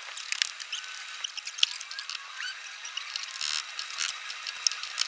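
Irregular light clicks and rattles of small metal parts being handled, with a few short faint squeaks.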